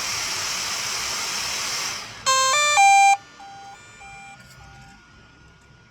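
Electronic intro sound effect: about two seconds of static-like hiss, then three quick beeping notes stepping upward, the last note repeating several times as a fading echo.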